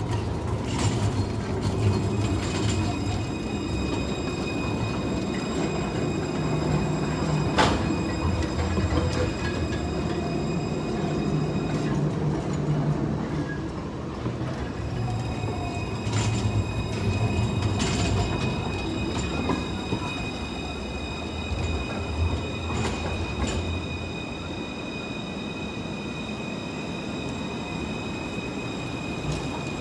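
Montpellier line 1 Alstom Citadis tram rolling slowly past, with a steady low rumble of wheels on rail and thin high squeal tones from the wheels. Several sharp clicks sound about 8, 16, 18 and 23 seconds in.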